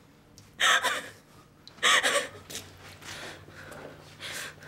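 A frightened woman gasping: two sharp, loud gasps about a second and a half apart, then softer shaky breaths. A low steady hum comes in about halfway through.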